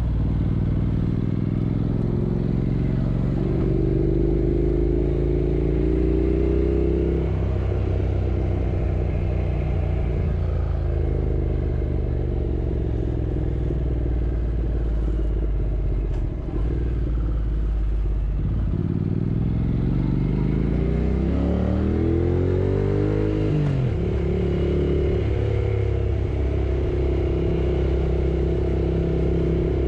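Yamaha R6 inline-four motorcycle engine running under way. The pitch climbs steadily as it revs up about two-thirds of the way in, then drops sharply at a gear change.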